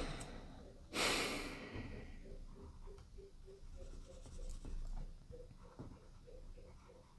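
A person's loud breath about a second in, then faint, quick squeaking strokes of a felt-tip marker colouring in a paper tracker sheet.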